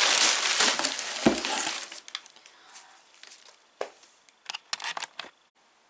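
Crumpled packing paper crinkling and rustling as hands dig through a cardboard box, with one thump about a second in. After about two seconds it drops to faint, scattered rustles and clicks.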